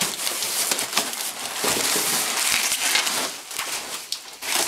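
Cardboard box and packing being handled and pulled about: continuous rustling and scraping of cardboard with scattered sharp crackles and knocks.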